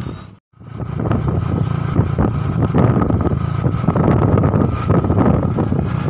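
Heavy bus engine running loud and close, mixed with strong wind buffeting on the microphone. The sound drops out completely for a moment about half a second in, then returns.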